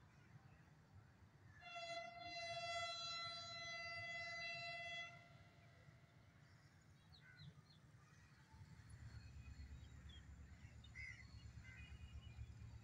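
Distant diesel locomotive horn sounding one steady blast of about three seconds, starting about two seconds in. Later a faint low rumble sets in, with a few bird chirps.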